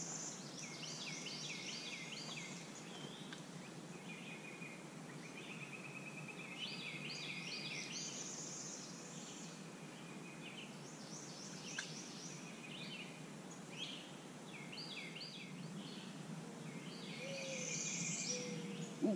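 Songbirds singing short, quick phrases of high chirps every few seconds over a steady outdoor background hiss.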